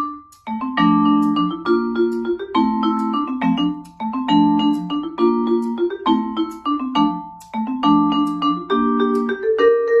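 Vibraphone played with four mallets: phrases of struck chords and quick runs, the notes ringing on over one another, with brief pauses between phrases.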